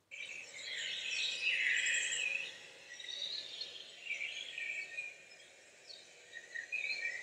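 Birds chirping and twittering over a faint steady outdoor hiss, in scattered bursts that come and go.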